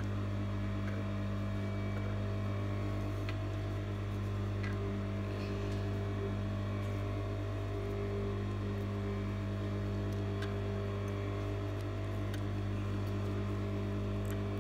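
Industrial single-needle sewing machine running with a steady motor hum while it stitches piping cord into fabric.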